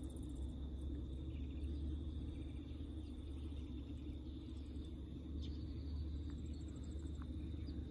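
Faint rural outdoor ambience: a steady high insect drone over a low, steady rumble.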